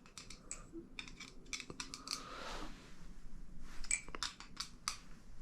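LDY Corvus balisong trainer being flipped: irregular sharp metallic clicks and clacks in short flurries as the 7075 aluminium handles and Zen pins strike against each other.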